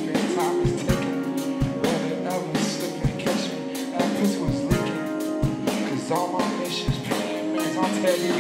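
Live concert music through a festival sound system: a song with held instrumental notes, repeated kick-drum hits and a singing voice.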